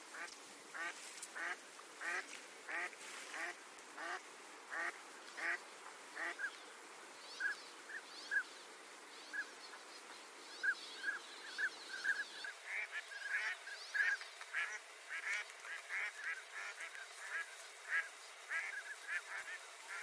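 A flock of waterfowl calling, with many short calls following one another a few times a second. About twelve seconds in, the low background noise drops away suddenly while the calls carry on.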